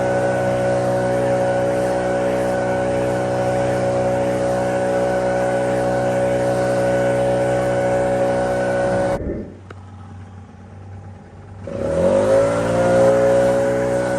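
Lawn mower engine running steadily at full speed. About nine seconds in it drops away abruptly, then about two and a half seconds later it comes back, its pitch rising as it spins up to full speed again.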